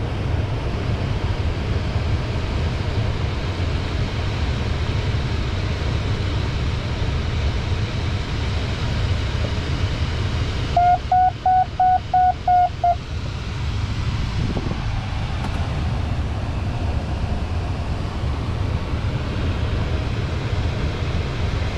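Steady airflow noise in a glider cockpit in flight. About halfway through, an instrument in the panel gives about seven quick electronic beeps at one pitch, lasting about two seconds.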